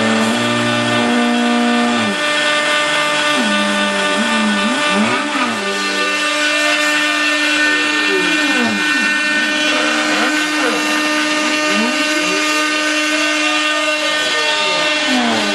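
Homemade CNC router carving a 3D model, its spindle running at a steady pitch while the stepper-driven axes whine in tones that sweep up and down as they speed up and slow down on each pass, after a couple of seconds of stepped, level tones.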